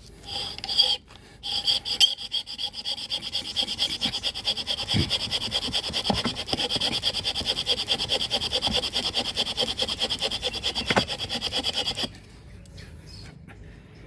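Bamboo fire saw at work: a bamboo strip sawn rapidly back and forth across a bamboo fireboard, a fast rasping friction of about four strokes a second with a steady high whine. After a brief stutter about a second in the strokes run evenly, then stop suddenly near the end.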